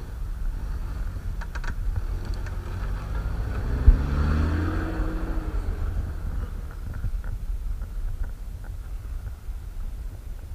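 Toyota 4Runner engine pulling the truck through snow as it drives past. Its pitch rises about three seconds in over a steady low rumble, with a single thump about four seconds in.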